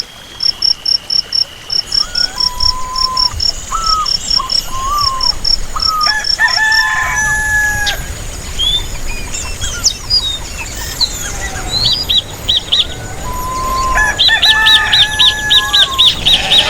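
Crickets chirping in steady, evenly spaced pulses, then a rooster crowing about six seconds in and again near the end, with small songbirds chirping and trilling between and over the crows.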